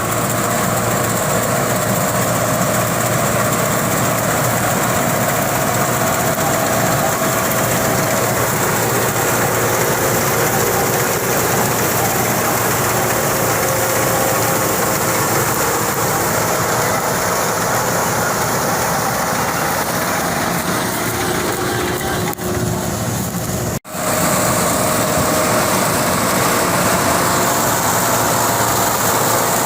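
Tractor engine and its PTO-driven straw chopper machine running steadily: a loud, continuous mechanical din. The sound dips briefly, then cuts out for an instant about three quarters of the way through before carrying on the same.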